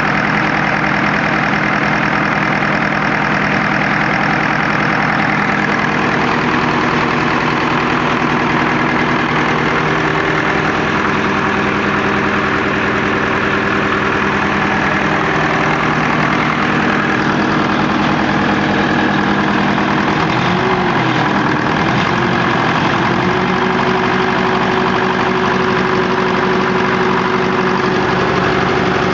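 SOM 30 B engine running steadily, with a knock that the owner cannot account for alongside heavy smoke. Its speed wavers down and back up about twenty seconds in, then holds steady.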